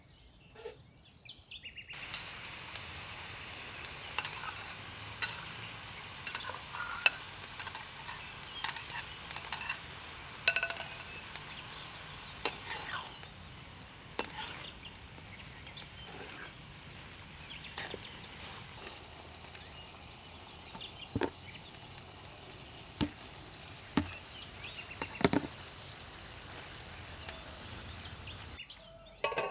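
Stir-frying in a metal wok: carrots, onion, minced pork and canned fish sizzle steadily while a metal spatula scrapes and clicks against the pan. The sizzle starts about two seconds in and stops just before the end.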